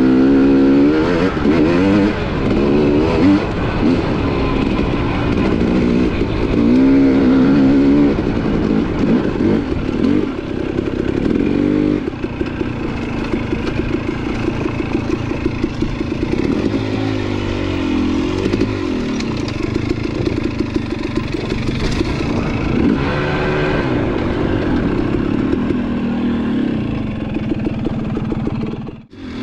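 Dirt bike engine revving up and easing off over and over as it is ridden along rough singletrack. It sounds briefly near silent just before the end.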